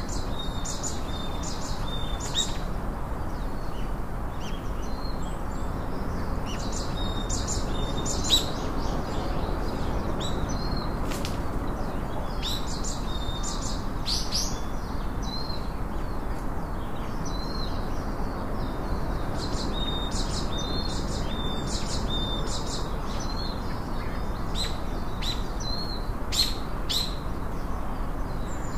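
Small birds chirping in repeated bursts of short, high chirps with pauses between, over a steady low rushing noise.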